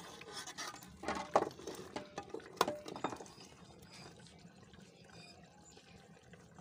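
Food cooking over a wood-fired mud stove, with a faint steady hiss. Several sharp crackles and knocks come in the first three seconds, and it is quieter after that.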